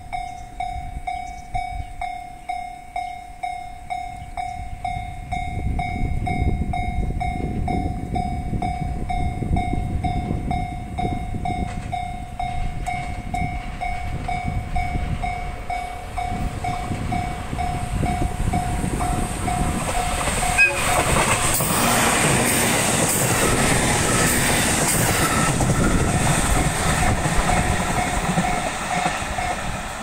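Japanese level crossing alarm chiming steadily, about two chimes a second, over a low rumble of passing rail traffic that builds from about five seconds in. The chiming cuts off about 20 seconds in. Louder, hissing train noise follows as a JR 701 series electric train approaches.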